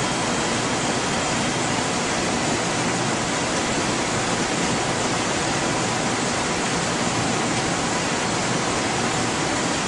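Steady, even hiss of equipment fans and air handling, with a few faint steady tones in it.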